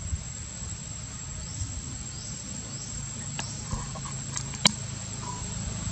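Insects trilling steadily at a high pitch, with a few sharp clicks in the second half, the loudest a little over a second before the end.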